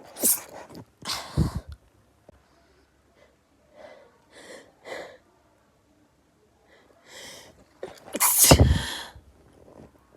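A person sneezing in a rapid fit set off by perfume: two sharp sneezes about a second apart, then quieter breathy sounds, then the loudest sneeze near the end.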